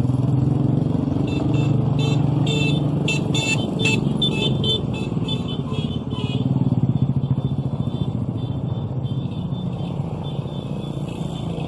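Small motorcycle engines running as a line of motorbikes and motorized carts ride past one after another. Over the engines, music with a regular beat is heard during the first half, fading after about six seconds.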